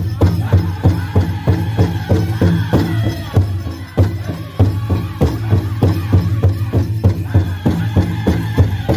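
Powwow drum group beating a big drum in a fast, even beat of about four strokes a second, with singing over it: a chicken dance song.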